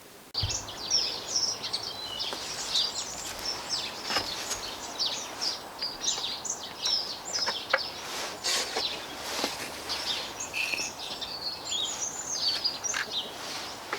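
Several small birds chirping and singing in quick, overlapping high calls, with a few sharp clicks or knocks scattered through. The sound starts abruptly about half a second in.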